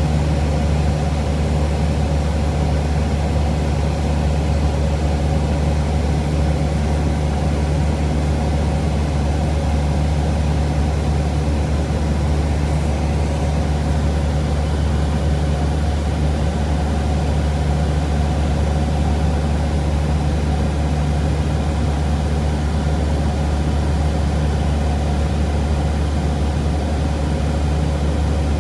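Cessna 172 Skyhawk's piston engine and propeller droning steadily in flight, heard inside the cabin.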